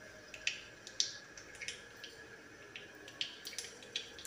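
Cumin and mustard seeds crackling in hot mustard oil in a kadhai: sharp, irregular pops, a few each second. This is the tadka stage, when the oil is hot enough for the seeds to splutter.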